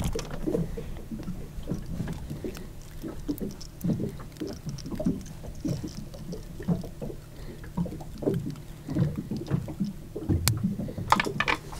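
Water slapping irregularly against the hull of a small boat lying at rest on the sea, over a faint steady low hum. A few sharp clicks come near the end.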